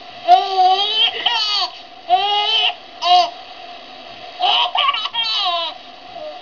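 A six-month-old baby laughing in four high-pitched bouts of belly laughter, the first and last long and broken into quick pulses, the middle two short.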